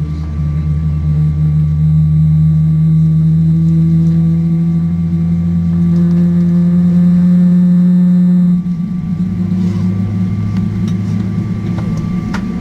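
A Boeing 777-300ER's GE90-115B jet engine starting, heard from inside the cabin: a low whine that slowly rises in pitch as the engine spools up, then drops abruptly about eight and a half seconds in, leaving a lower steady hum.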